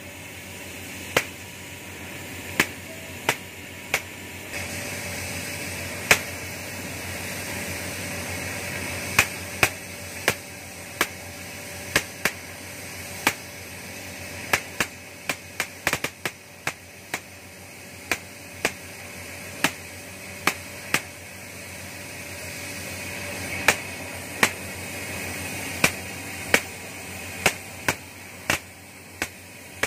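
Oxy-fuel gas cutting torch hissing steadily as it cuts through steel, with sharp snapping pops at irregular intervals. The hiss gets a little louder about four seconds in.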